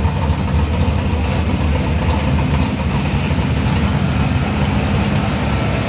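A vehicle engine idling nearby with a steady low rumble.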